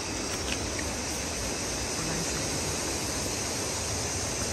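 River water rushing: a steady, even rush.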